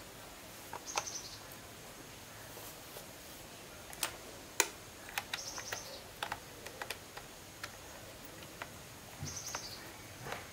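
Scattered light clicks and taps, as of small tools and parts being handled, with three brief high chirps: about a second in, in the middle and near the end.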